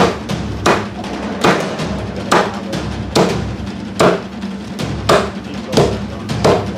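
Meat cleaver chopping through a lamb loin into chops on a wooden block: about nine heavy chops, each just under a second apart, over background music.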